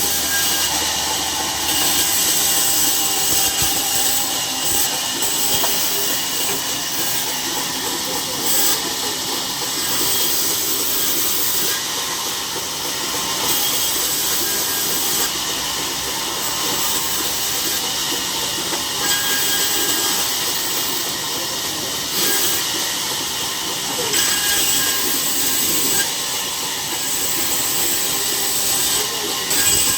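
A saw cutting through a log: a steady, loud, hissing rasp that swells a little every few seconds.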